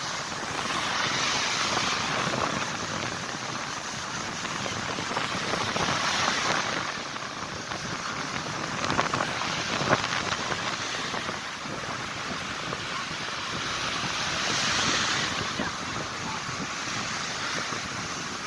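Sea waves surging and breaking, the wash swelling and easing every few seconds, with wind on the microphone. A couple of short sharp clicks about halfway through.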